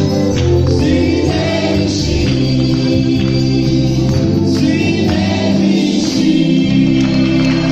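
Roma Christian praise song performed live: a man and women singing together into microphones over keyboard accompaniment, amplified through a PA speaker in a reverberant hall.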